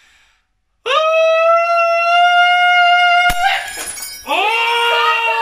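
A man's voice holds one loud, steady sung note into a crystal wine glass, pitched at the glass's resonant frequency, for about two and a half seconds. The glass then shatters with a sharp crack and scattering pieces, and loud excited shouting follows.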